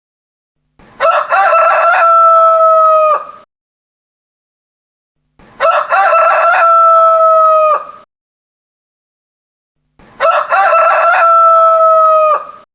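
A rooster crowing three times, evenly spaced. Each crow has short choppy opening syllables and ends in a long held note, with silence between the crows.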